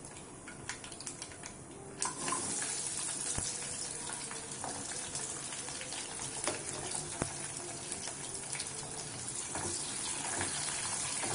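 Whole shallots tipped into hot sesame oil in a kadai, starting a sudden sizzle about two seconds in that carries on as a steady frying hiss, with a few sharp clicks.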